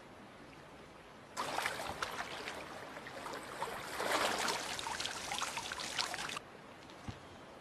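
Water splashing and sloshing as a large dinosaur's feet wade through a shallow stream. It starts suddenly about a second and a half in and cuts off sharply about six seconds in.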